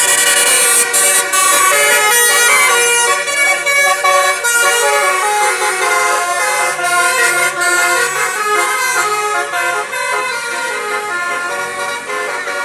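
Bus telolet horn (a Basuri multi-trumpet air horn) playing a rapid melody of changing notes, several tones often sounding at once, loud and continuous.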